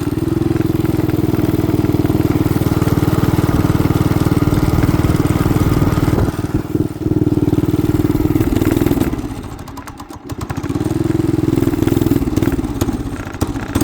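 Small single-cylinder 212 cc engine running fast on choke and struggling. It nearly dies about nine seconds in, picks back up, then sags again near the end, running rough and barely staying alive.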